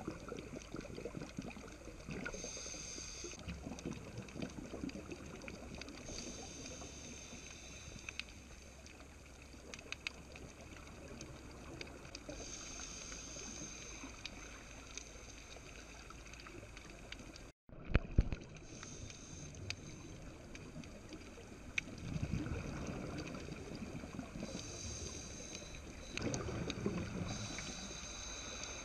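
Muffled underwater sound on a diving camera, with a scuba regulator's exhaled bubbles hissing and rumbling every few seconds. The sound drops out briefly just past the middle, followed by a few sharp knocks.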